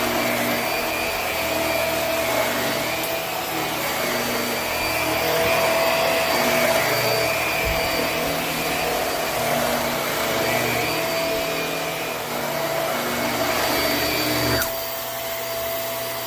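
Hoover High Performance Swivel bagless upright vacuum running steadily over carpet, its motor giving a constant whine over a rush of airflow. Near the end the lower rumble drops away while the motor whine carries on.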